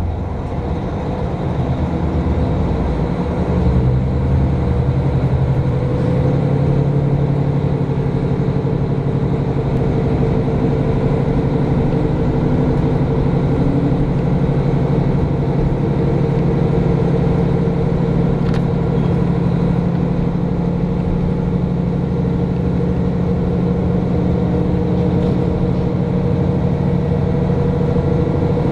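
Diesel railcar's engine running under power as the local train pulls away, heard inside the passenger cabin. It builds over the first few seconds, then holds a steady drone.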